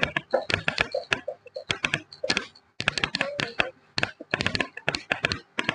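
Whiteboard being wiped clean with a hand-held duster: runs of quick rubbing strokes that come through as sharp clicks and knocks, with short pauses between the runs.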